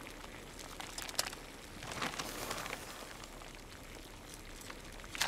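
Water bubbling in a glass saucepan over a gas flame: faint, even crackling with a few sharper clicks, about a second in and again near the end.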